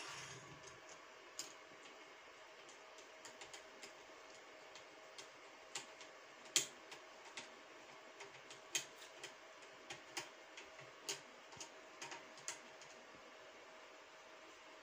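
Irregular sharp clicks and light metal taps, about one a second, from a screwdriver driving screws to fix a steel bracket onto the metal leg frame of a sewing machine table.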